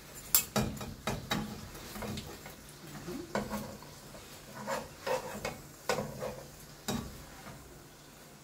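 Spoon and spatula clinking and scraping against a nonstick frying pan as stuffed rolls are turned in a little hot oil, over a faint sizzle. The knocks come irregularly and stop near the end.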